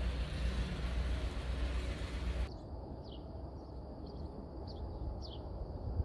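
Low steady rumble of a car's engine running, heard from inside the car; about halfway through the sound cuts to a quiet street where a bird gives a few short whistles, each sliding down in pitch.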